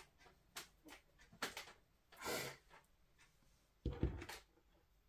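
Faint, scattered clicks and taps, a brief hiss about two seconds in, and a low thump about four seconds in: small handling noises in a quiet room.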